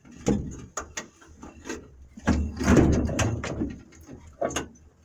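Handling noise from wiring being worked into a truck dashboard: a string of clicks and knocks with a louder stretch of rustling and rubbing about halfway through.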